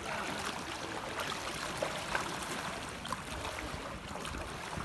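Outdoor floodwater ambience: a steady noisy background of moving water with a few faint scattered ticks.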